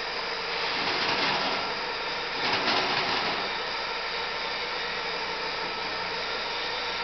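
Fertilizer roller granulator running: a steady mechanical whir and rush from its rollers, gearbox and belt drive, swelling louder briefly about a second in and again around two and a half to three seconds.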